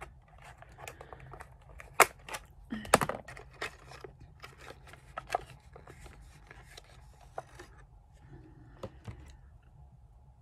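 A wrapped chocolate being torn and crinkled open by hand, a run of crackling and sharp snaps, the loudest about two and three seconds in, growing sparse and quiet in the last few seconds.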